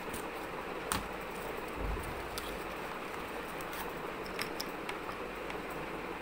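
Corrugated cardboard being handled and rolled into a tube on a table: a few sharp clicks and taps, the loudest about a second in, and a soft thump near two seconds, over a steady room hiss.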